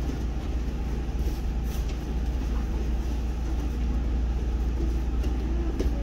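A steady low rumble of room noise, with a few faint thumps and scuffles of bodies on gym mats and faint distant children's voices near the end.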